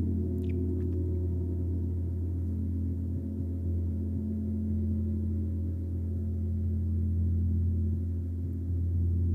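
A gong played continuously, ringing in a sustained wash: a deep, steady hum with a dense cluster of higher overtones. It swells slightly near the end.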